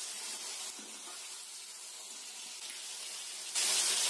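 Green peas and cashews frying in hot oil in a kadhai, a steady sizzling hiss, with a sudden louder burst of hiss near the end lasting about a second.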